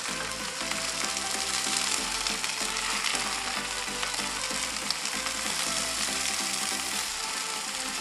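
Sliced bitter melon sizzling steadily in hot cooking oil in a frying pan, just added, while being stirred with chopsticks.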